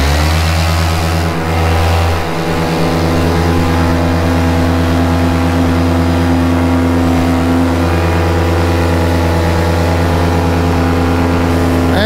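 Paramotor engine and propeller at full throttle for takeoff, steady and loud through the launch run and climb-out after revving up.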